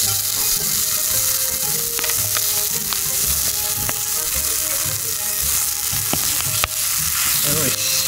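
Slices of pork belly sizzling as they grill over a campfire: a steady, loud hiss of fat frying, dotted with sharp pops.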